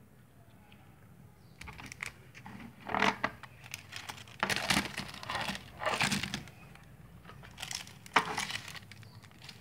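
Plastic packaging crinkling and rustling in irregular bursts as a plastic toy-truck container and plastic-wrapped sticks of coloured modelling dough are handled, starting about a second and a half in.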